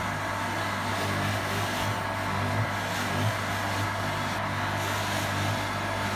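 Electric polishing motor running steadily with a low, even hum.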